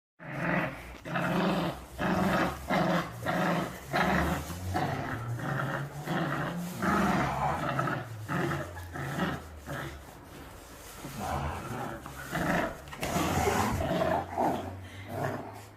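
A dog growling and vocalizing in a long run of short, repeated grumbling calls, about one or two a second.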